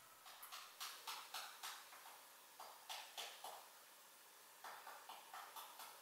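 Quick, sharp ticks from a Eurasian wren, in three short runs of a few ticks a second.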